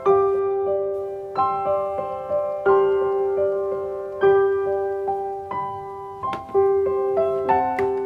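Background music: a slow piano tune, its notes struck about every second and a half and each fading away.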